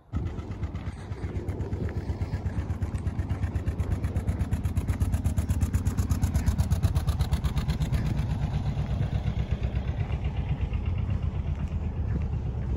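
A canal narrowboat's engine running with a fast, even chugging pulse. It starts abruptly, grows louder toward the middle, then eases off slightly.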